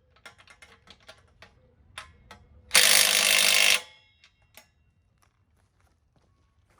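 Scattered clicks and taps of hand tools working on exhaust hardware, with ratchet-like ticking. About three seconds in, a loud burst of rushing noise lasts about a second and cuts off.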